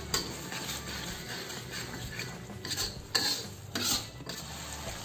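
Metal spatula scraping and stirring thick red chili spice paste around a steel wok as the paste is sautéed, in a few separate strokes, the loudest in the second half.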